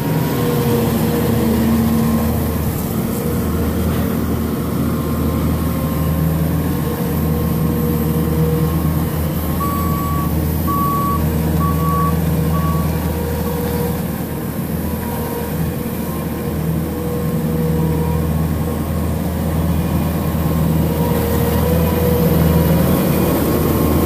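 Bobcat S770 skid-steer loader's diesel engine running steadily as it works with hay bales, with its backup alarm beeping about four times near the middle.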